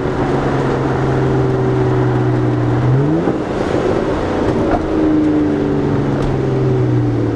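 BMW N52 inline-six in a 328i with its muffler and resonator deleted, heard from inside the cabin while driving: a steady exhaust drone, with a brief rise in revs about three seconds in before it settles back.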